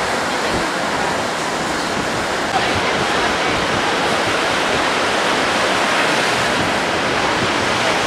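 Steady rush of surf breaking and washing up the beach, with a small step up in level about two and a half seconds in.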